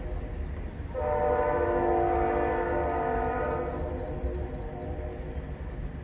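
Train horn sounding one long blast, a chord of several steady tones, starting about a second in and fading out near the end, over a steady low rumble.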